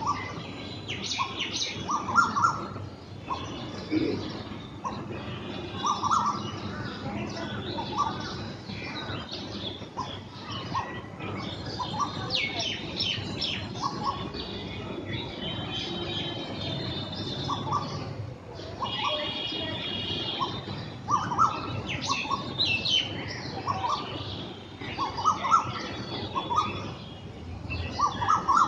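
A pair of black drongos calling back and forth. Short notes repeat every second or so, mixed with higher, quicker calls and a few held whistles.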